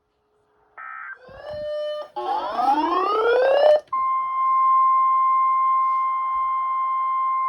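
NOAA Weather Radio alert sequence ahead of a new warning. About a second in comes a short burst of electronic data tones, then shifting electronic tones and a rising sweep. From about four seconds in, the steady single-pitch warning alarm tone plays.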